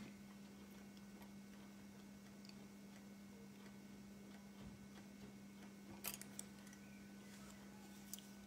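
Near silence: room tone with a steady low hum, and a few faint clicks about six seconds in and again near the end.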